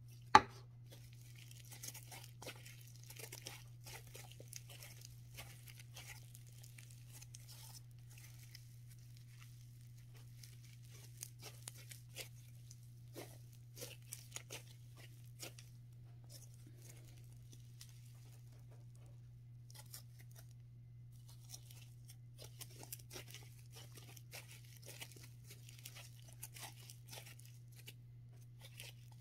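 Thick matcha slime being stretched, folded and squeezed by hand, giving off soft crackling and tearing sounds as it pulls apart. A single sharp click sounds just after the start, and a steady low hum runs underneath.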